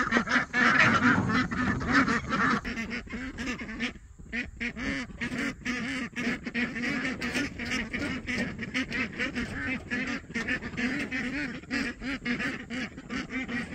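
A flock of young domestic ducks calling, many short calls overlapping in quick succession, loudest in the first couple of seconds and then settling a little.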